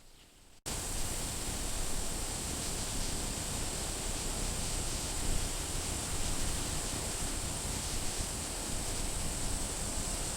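A steady, even rushing hiss, like wind or running water, that cuts in abruptly about half a second in.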